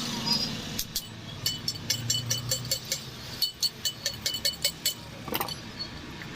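Series of light, ringing metal-on-metal clinks, roughly four or five a second, from tools or parts of a car shock absorber being worked on, ending with a short scrape.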